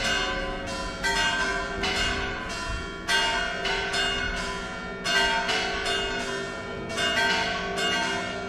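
Church bells ringing in a stone bell tower: several bells struck again and again in quick succession, each strike left ringing into the next.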